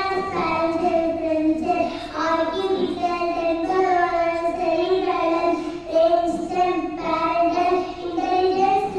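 A young girl singing solo into a handheld microphone: an unaccompanied melody of held notes, sung without a break.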